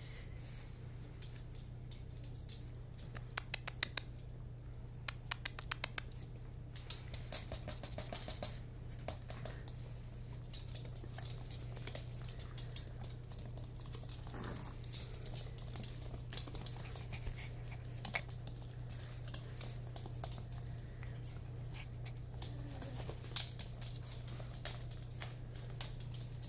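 Dogs' claws clicking and pattering on a laminate floor as a Yorkshire terrier–chihuahua cross puppy and a larger fluffy dog play, with a run of quick clicks a few seconds in. A steady low hum runs underneath.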